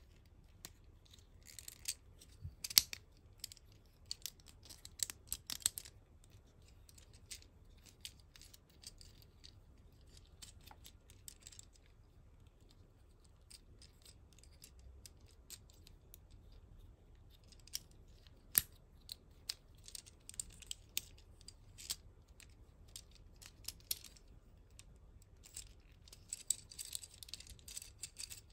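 Small plastic joints and panels of a transforming ambulance robot toy clicking, snapping and rubbing as they are twisted and folded by hand. The clicks come in bunches, with a quieter stretch in the middle.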